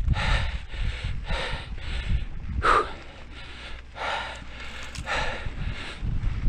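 A mountain biker panting hard close to a helmet-mounted camera's microphone, quick breaths about two a second with a sharper gasp a little under three seconds in, over a low rumble of wind and tyres on the dirt trail.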